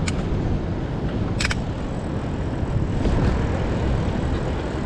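Wind rushing over the action-camera microphone while cycling: a steady low rumble, with a sharp click about a second and a half in.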